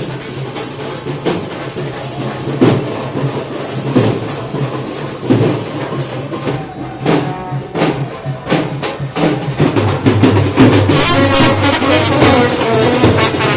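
Brass band music with drums: heavy drum beats, with horns joining in more strongly near the end.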